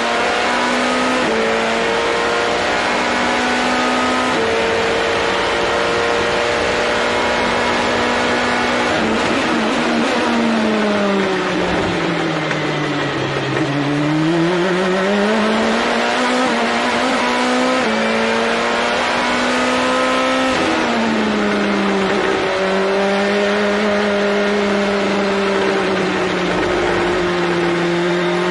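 Indy NXT race car's turbocharged four-cylinder engine heard from the cockpit at speed, holding a steady high note with small gear-change steps. About nine seconds in the note falls away as the car slows for a corner, then climbs again through the gears as it accelerates out, settling to a steady note for the rest.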